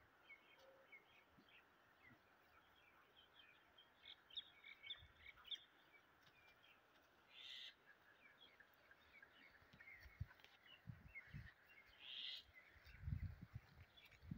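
Faint chirping of small birds, many short calls scattered through, over a steady high hiss. In the last few seconds a few short low rumbles and thumps stand out as the loudest sounds.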